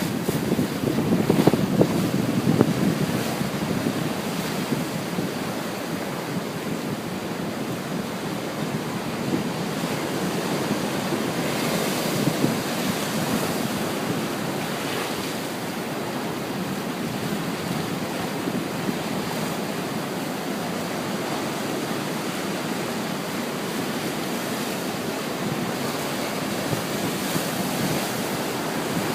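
Ocean surf: waves breaking and washing up the beach in a steady rush, swelling loudest in the first few seconds and again about twelve seconds in. Wind buffets the microphone throughout.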